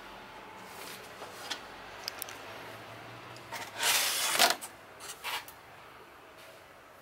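Hand handling a corrugated cardboard box: a few light clicks, then a loud scraping rustle of cardboard about four seconds in, followed by two shorter rustles.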